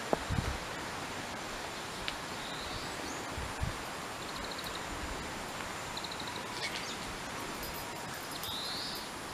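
Outdoor ambience: a steady background hiss with small birds calling now and then, short rising chirps and two quick trills. A few low bumps come in the first half-second and once more a little past three and a half seconds.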